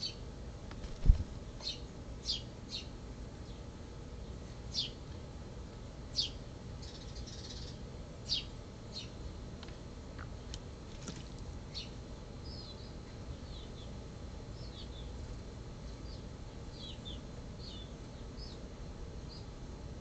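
Sharp, very short bird chip notes, repeated irregularly through the first half, then softer, shorter chirps later on. A single low thump about a second in is the loudest sound.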